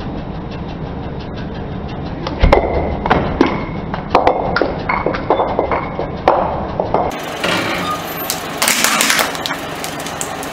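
Glass perfume bottle crushed under a car tyre: a loud crack about two and a half seconds in, then several seconds of crunching and crackling glass. After about seven seconds, a plastic syringe cracks and crunches under the tyre.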